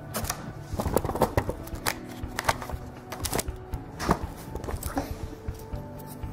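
A run of sharp clicks and knocks from handling as the camera is picked up and moved over a wooden table. Faint music with held notes plays underneath.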